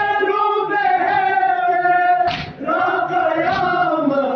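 A group of men singing a noha, a Shia mourning lament, together in long held notes, with a short break for breath about two seconds in.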